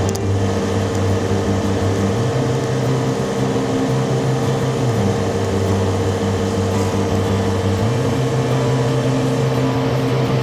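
Background music: a steady drone of sustained low chords that change every few seconds over a constant higher tone.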